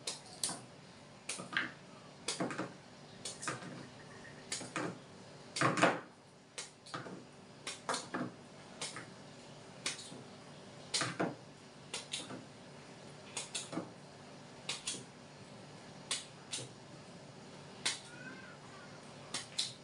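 Kitchen knife cutting chunks off a peeled cassava root held in the hand, the pieces dropping onto a plastic plate: irregular sharp clicks and knocks, about one or two a second.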